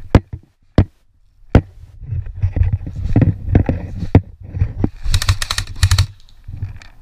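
Three sharp clicks about two-thirds of a second apart, then several seconds of close crackling and rustling, with a dense run of sharp clicks about five to six seconds in: an airsoft player's gun and gear handled on the move around a wooden pallet barricade.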